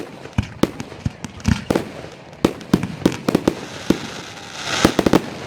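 Fireworks going off: an irregular string of sharp bangs and pops, often several in quick succession, with a brief hiss swelling up near the end.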